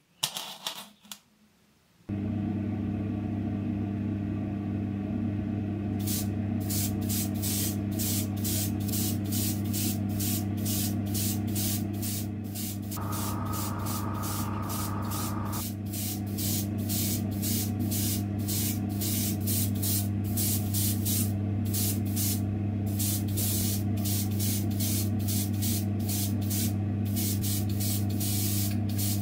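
A steady motor hum starts about two seconds in. From about six seconds, an airbrush sprays paint onto a small diecast part in rapid short bursts of hiss, a couple each second.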